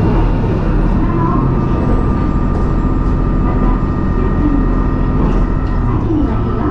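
Inside a Matsuura Railway diesel railcar under way: the diesel engine runs steadily under the rumble of wheels on the rails. A faint high whine dips slightly in pitch about a second in.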